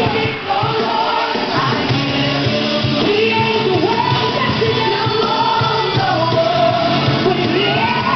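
Gospel song with singing voices, played for a praise dance.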